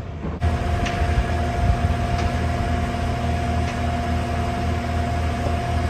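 Heavy construction machinery running: a steady low engine rumble with a steady high-pitched whine over it, and a few faint clicks.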